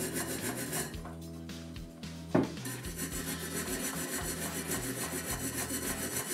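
Hand brush scrubbing old grease and dirt from a bicycle wheel's hub shell in quick back-and-forth strokes, pausing briefly after about a second and resuming with a single knock. Background music plays underneath.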